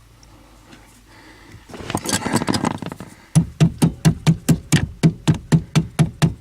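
A rubber brake pedal pad being worked and scraped onto its pedal, then beaten on repeatedly to seat it: a run of sharp, even strikes at about four a second, starting about halfway through.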